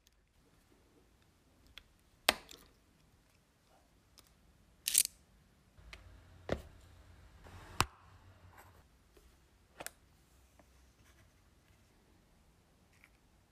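Scattered sharp clicks and taps of handling on a silicone work mat, from a snap-off utility knife and wire. A little past halfway a clear plastic compartment box of heat-shrink tubing is set down and slid on the mat: a dull knock with a couple of clicks.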